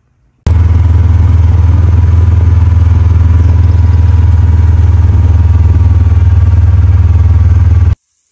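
A very loud, steady low motor drone with a fast even pulsing, starting suddenly about half a second in and cutting off suddenly near the end.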